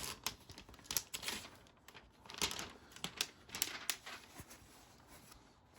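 Diamond-painting canvas and its clear plastic cover film being handled: irregular crinkles, rustles and light taps that die down near the end.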